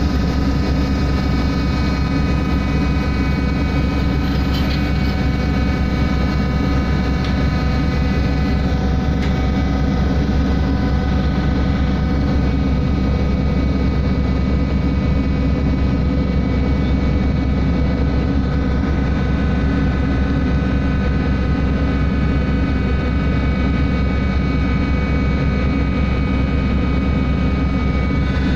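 Ship's engines and machinery running steadily: a loud low drone with a whine of several steady high tones above it.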